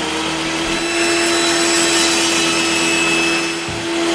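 Circular saw blade spinning at speed and cutting through a wooden log: a steady motor whine over rasping wood noise.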